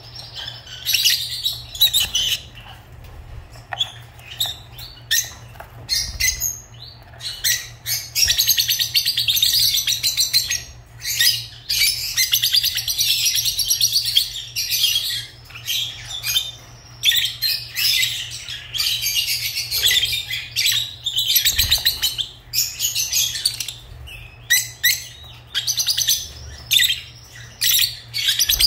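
Lovebirds chirping in rapid, high-pitched runs of a few seconds each, broken by short pauses.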